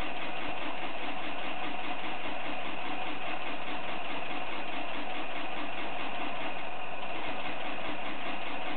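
Sony A55's shutter firing in a continuous high-speed burst with an HVL-F42AM flash, a rapid, even run of mechanical clicks at about six a second.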